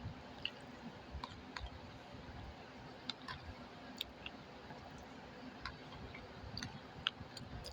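Faint, scattered small clicks and ticks of someone eating, over a low steady rumble from running fans.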